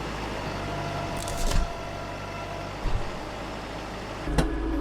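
Compact diesel tractor engine running at low throttle, with a few clanks and knocks, a sharp one about a second and a half in, one near three seconds and one near the end. The engine picks up again near the end.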